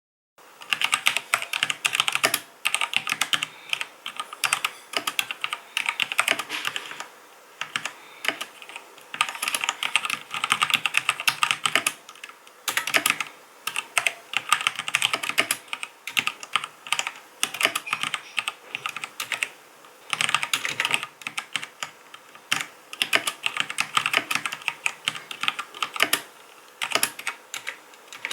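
Typing on a HyperX Alloy FPS RGB mechanical keyboard with linear Kailh Speed Silver switches: fast runs of key clacks in bursts of a few seconds, broken by brief pauses.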